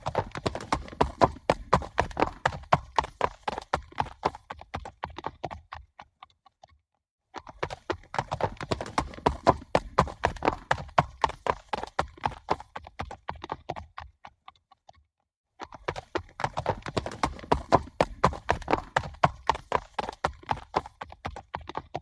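Galloping horses, hooves striking in rapid beats. The gallop comes three times, each run loudest near its start and fading away over about six seconds, with a short silence between runs.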